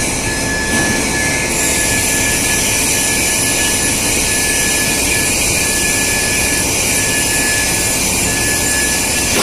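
Pipe swaging (tapering) machine running: a loud, steady mechanical noise with a constant high whine.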